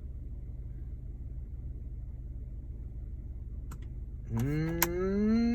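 Pickup truck engine idling, a steady low rumble inside the cab, while the turned-up radio stays silent. Two faint clicks come a little past halfway, then a man's drawn-out voice near the end, slowly rising in pitch.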